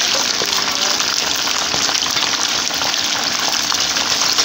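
Whole tilapia frying in hot oil in a pan over high heat: a steady sizzle with a dense crackle of popping bubbles.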